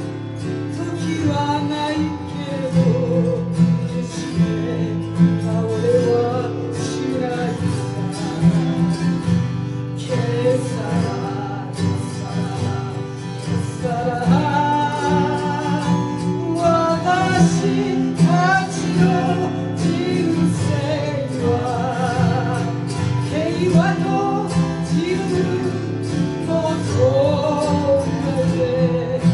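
Live acoustic music: an acoustic guitar and a hand-held harp-like string instrument playing together, with a wavering melody line that sounds like singing.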